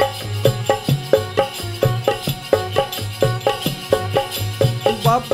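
Instrumental break in a Bundeli folk song: dholak and tabla drumming a steady, quick beat under a melody on harmonium and keyboard, with no singing.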